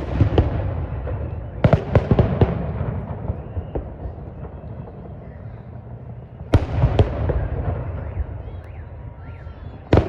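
Fireworks salute going off in volleys: sharp bangs at the start, a cluster of three around two seconds in, two more around seven seconds in and another at the very end, each followed by a low rolling rumble and crackle that dies away.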